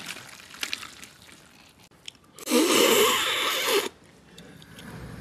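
Someone eating braised chicken heads with chopsticks: faint chewing and small clicks, then a loud rushing sound lasting about a second and a half, from about two and a half seconds in.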